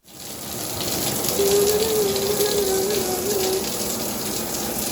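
Shower running: a steady rush of spraying water. A wavering tone rides over it for about two seconds in the middle.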